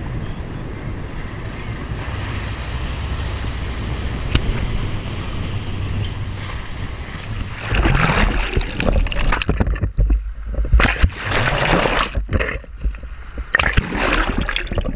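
Steady wind and sea noise on the microphone over open water. About eight seconds in it gives way to irregular, loud surges of rushing, gurgling water as the camera goes under the surface, with brief drop-outs between them.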